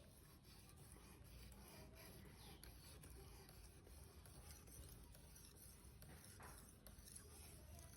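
Near silence, with faint scattered scraping and rubbing sounds.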